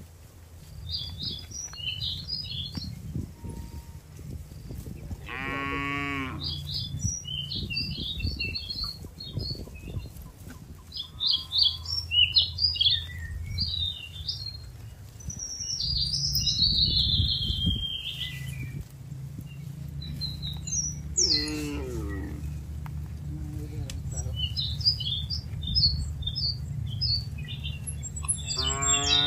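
Cows in a grazing herd mooing: three long moos, one about five seconds in, one about twenty seconds in and one at the very end. Small birds chirp throughout.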